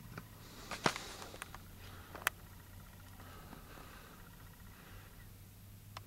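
Quiet room tone with a faint steady low hum, broken by a few short clicks, the sharpest about a second in and just past two seconds.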